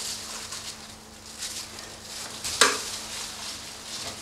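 Knife slicing and scraping through pork shoulder meat on a stainless steel table, a soft wet rasping, with one sharp knock about two and a half seconds in.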